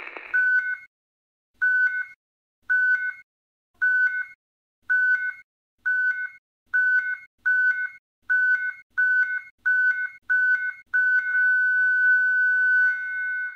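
Electronic alert beeps, each a short tone that steps up in pitch at its end. They repeat and speed up from about one a second to nearly two a second. About eleven seconds in they merge into one steady tone held for about two and a half seconds, which cuts off at the end.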